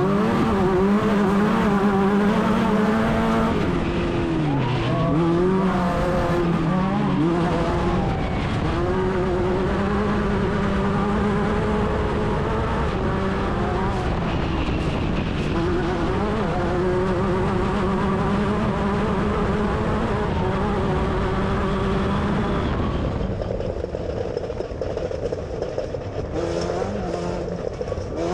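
Class 10 off-road race car's engine running hard at speed, its pitch dipping and climbing a few times about four to eight seconds in and then holding steady. Near the end the sound turns duller and a little quieter.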